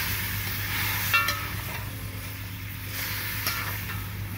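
Meat and vegetables sizzling as they braise in a metal pot, over a steady low hum. A sharp metal clink rings out about a second in, and a fainter one comes near the three-and-a-half-second mark.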